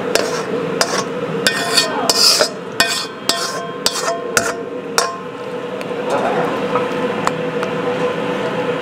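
Wooden spatula scraping and knocking against a black wok and a ceramic bowl as food is pushed from the wok into the bowl: a quick series of clinks and scrapes, thick for the first five seconds and then sparse. A steady hum runs underneath.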